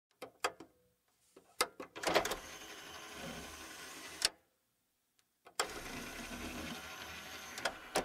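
CD/DVD player's motorized disc tray opening and closing. It starts with a few clicks, then two motor runs of about two seconds each, separated by a short pause. Each run ends in a sharp click as the tray reaches its stop.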